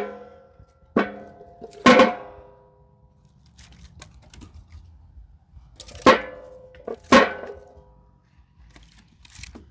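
Split firewood pieces dropped one at a time into the metal barrel of a WolfeRidge firewood bagging station. Each makes a sharp knock with a short metallic ring: three about a second apart, then a pause of about four seconds, then two more.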